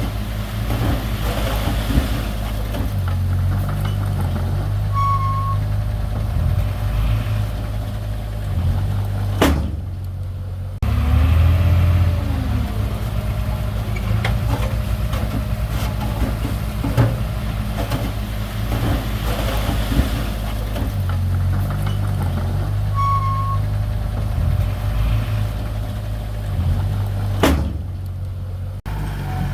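Diesel engine of heavy earthmoving machinery running steadily, with a sharp knock about nine and a half seconds in and again near the end, and a short rise and fall in engine pitch about eleven seconds in.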